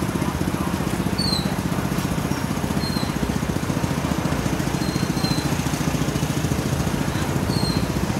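A small engine running steadily, with a fast even pulsing, and a few short high chirps over it.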